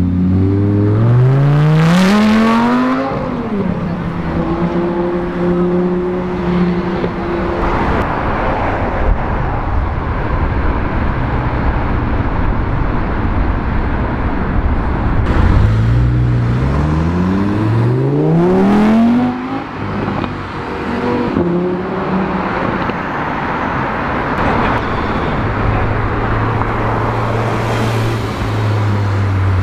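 Sports car engines revving hard as the cars pull away on a city street, rising in pitch twice, then a steady engine drone near the end, over traffic noise.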